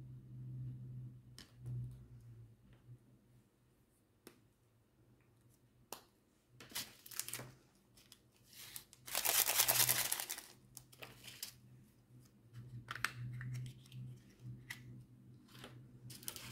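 Small clicks of plastic storage containers being handled, and about nine seconds in a rattling rush lasting about a second and a half as diamond painting drills are poured from a plastic tray into a container.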